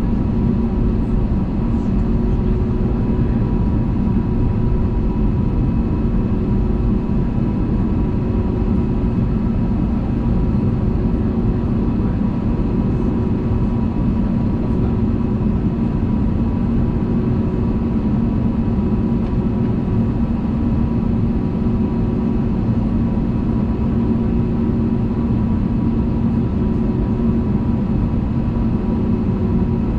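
Steady in-flight cabin drone of an Airbus A320neo: turbofan engines and airflow making a constant low rumble with several steady humming tones on top, heard from inside the passenger cabin.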